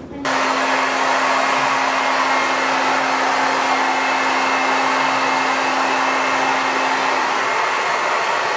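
Handheld hair dryer blowing steadily on a dog's fur, starting abruptly just after the start. A low steady hum under the airflow drops out near the end.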